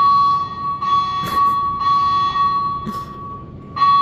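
Building fire alarm speaker strobes sounding the temporal-three evacuation pattern, incredibly loud. Three harsh pulses come about a second apart, then a pause of about a second and a half before the next group starts near the end, all over a steady high tone that never stops.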